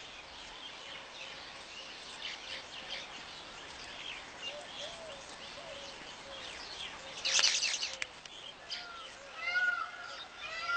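Weaverbirds chirping and chattering: short rising-and-falling calls in quick runs over a faint bed of high twittering, louder and faster near the end. A brief loud rustle about seven seconds in.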